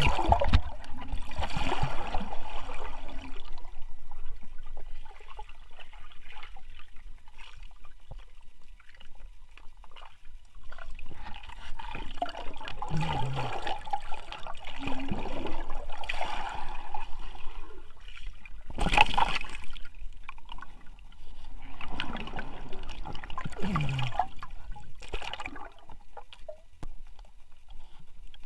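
River water splashing and sloshing in irregular surges every few seconds, with some gurgling.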